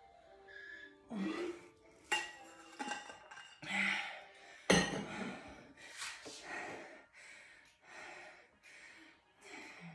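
A person breathing hard to recover after a hard cardio interval, with short breaths less than a second apart. There are a couple of sharp clinks or knocks along the way.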